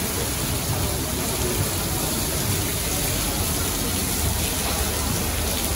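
Heavy tropical-storm rain pouring down onto the street, pavement and parked cars: a steady, dense hiss of falling water.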